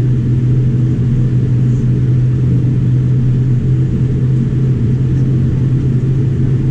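Steady low rumble with a strong constant hum inside the cabin of a Boeing 787-9, its engines at low power while the aircraft moves slowly on the ground before takeoff.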